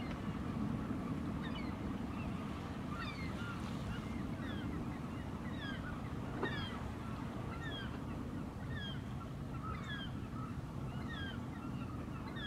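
Birds calling at the shore: short, high notes that fall in pitch, repeated about once or twice a second, over a steady low rumble. A single sharp click comes about halfway through.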